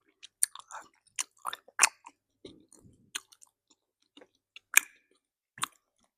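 Close-miked mouth sounds of a person chewing bread: irregular sharp clicks and smacks, scattered unevenly, the loudest a little before five seconds in.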